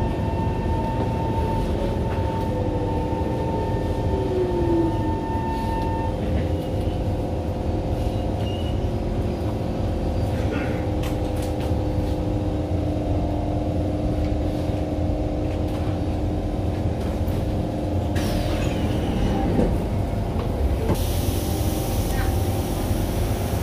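SMRT Kawasaki C151 train's motor car running and slowing to a stop, heard from inside the car: a steady rumble with motor whines, one falling in pitch a few seconds in. Near the end a hiss rises as the doors open.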